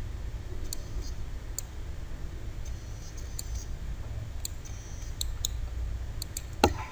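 Computer mouse clicking: separate sharp single clicks, roughly one a second, over a steady low background hum. One brief louder sound comes near the end.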